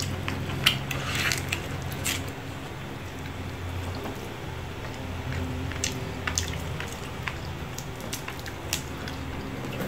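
Cooked lobster shell being pulled apart and picked at by hand, making wet squishing sounds and scattered small cracks and clicks as the meat is eaten from the body. A steady low hum runs underneath.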